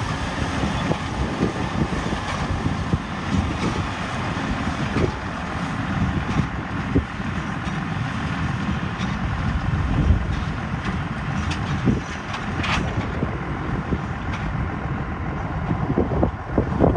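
Tractor engine running steadily, with a few short knocks from the machinery.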